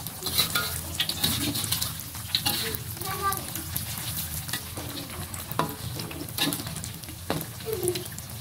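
Kremesan batter deep-frying in a wok of hot oil, sizzling steadily with crackles, while a metal spatula scrapes and knocks against the wok as the crisp is lifted and folded, with several sharp clicks.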